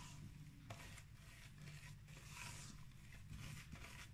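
Silicone spatula working thick honey cookie dough against the sides of a stainless steel bowl: faint, repeated scraping strokes.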